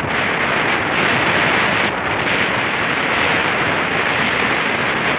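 Strong wind buffeting the microphone in a steady rush, over choppy lake water lapping at the grassy shore.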